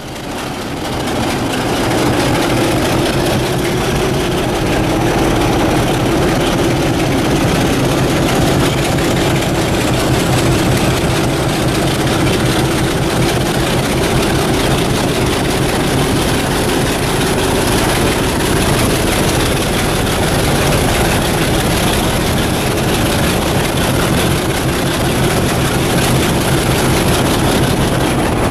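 Class 26 locomotive's Sulzer 6LDA28 six-cylinder turbocharged diesel engine running loud and steady. A thin high turbocharger whistle rises slowly in pitch as the engine works.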